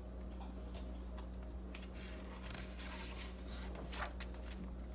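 Quiet room tone with a steady low hum and a few faint, short clicks.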